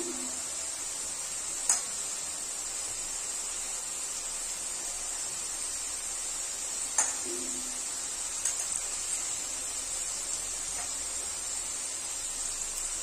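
Diced potatoes frying in hot oil in a black kadai, a steady high sizzle. Two sharp clicks stand out, one about two seconds in and one about seven seconds in.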